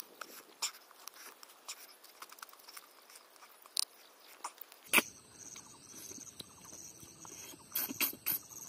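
Close-up eating sounds of a man chewing and sucking pieces of crab curry off his fingers, with many small wet clicks and smacks of crab shell. One sharp, louder crack comes about five seconds in.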